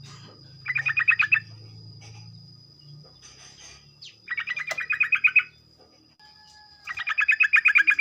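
Yellow-vented bulbul (trucukan) giving three bursts of fast, rattling chatter (the 'ropel'), each of rapid repeated notes lasting about a second: about a second in, past the middle and near the end. A faint steady high-pitched whine runs underneath.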